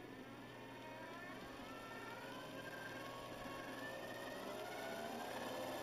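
Small electric motor driving a model sternwheeler's paddle wheel through a toothed belt, its whine rising slowly in pitch and getting louder as the speed is brought up through the electronic speed controller.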